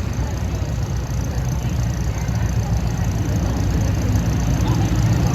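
Demolition derby cars' engines running, a low steady rumble that grows slightly louder toward the end.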